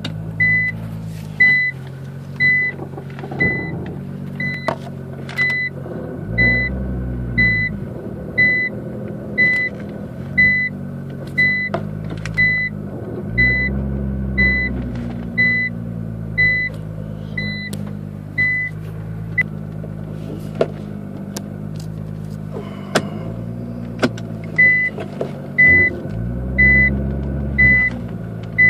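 Nissan GT-R R35 reversing and turning, heard from inside the cabin: the reverse warning beeps about one and a half times a second, pausing for a few seconds past the middle, over the twin-turbo V6 idling and swelling now and then. Scattered sharp clicks and creaks come through from the car while it turns, the creaking noise the owner is chasing.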